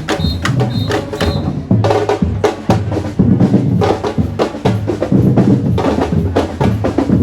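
Live street percussion band, typical of samba batucada drumming, playing a fast steady rhythm: bass drums under dense hand-drum and wood-block strokes. A few short high-pitched tones sound near the start.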